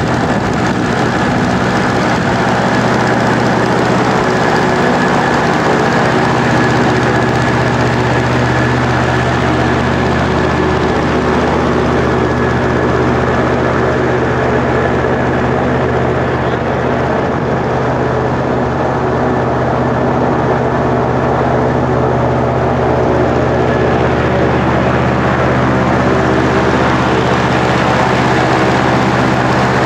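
Airboat engine and propeller running loudly at a steady cruising speed, the pitch rising slightly about a second in and then holding.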